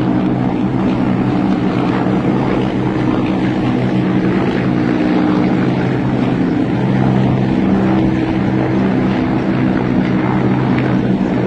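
A formation of military helicopters flying overhead: a loud, steady drone of rotors and turbine engines, with several low hums that shift a little in pitch.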